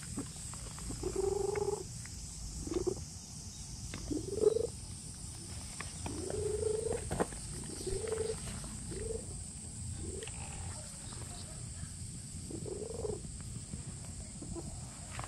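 Domestic cat meowing repeatedly in about eight short, low-pitched calls spread over several seconds.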